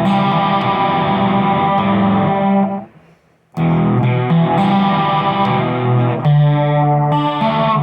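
Electric guitar playing sustained chords through effects with light distortion, breaking off for a moment about three seconds in before starting again.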